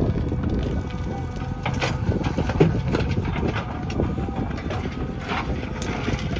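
Diesel engine of heavy earth-moving machinery running steadily, with a few sharp knocks scattered through.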